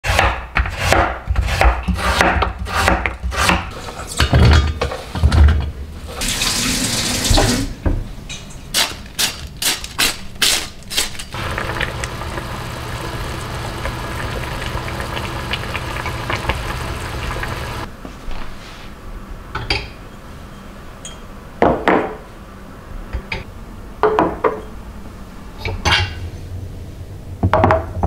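A sequence of kitchen sounds: a knife chopping daikon radish on a wooden cutting board at about two strokes a second, a short rush of running tap water, a second run of chopping, a steady simmer while a pot of stew is stirred with a wooden spoon, and then a few light clinks of glass jars set down on a counter.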